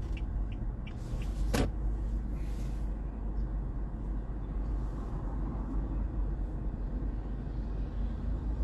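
Car driving at low speed, heard from inside the cabin: a steady low engine and road rumble with tyre hiss. A single sharp click sounds about one and a half seconds in.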